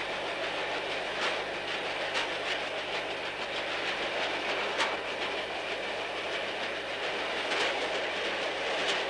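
Steady rolling noise of a moving vehicle, with a few faint clicks scattered through it.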